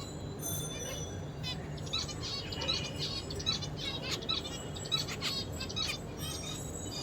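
Zebra finch singing: rapid runs of short, high chirping notes repeated over several seconds.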